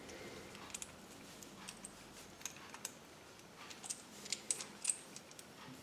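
Small plastic toy parts from a Kinder Surprise egg, a finger roller, clicking as they are fitted together by hand: scattered light clicks, coming quicker and sharper near the end.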